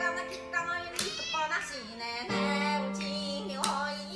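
Background music: a pop song with a high, child-like singing voice over held notes.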